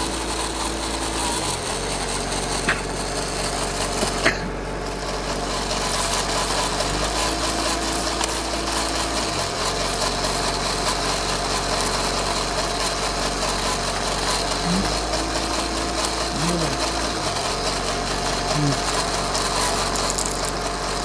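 Small electric motor of a homemade toy onion-seed thresher running steadily as it threshes. Two short clicks come about three and four seconds in.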